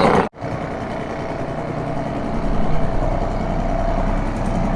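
British Seagull two-stroke outboard motor running steadily, pushing a small boat along at canal speed.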